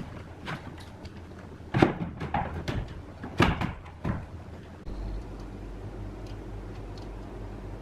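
A few sharp knocks and clatters of hard objects being handled, then a steady low hum starts about five seconds in and carries on.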